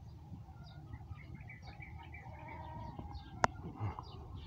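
Small birds chirping here and there over a low rumble, with one sharp click about three and a half seconds in.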